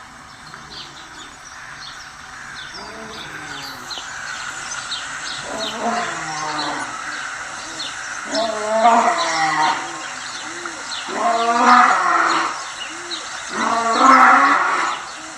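A lion's roaring bout: a series of deep, moaning roars, each about a second long, every two to three seconds, building steadily louder. Small birds chirp faintly behind them.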